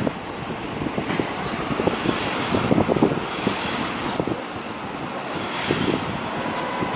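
Kobe Municipal Subway train running on the rails, with a steady rumble and short high-pitched wheel squeals that come and go four times.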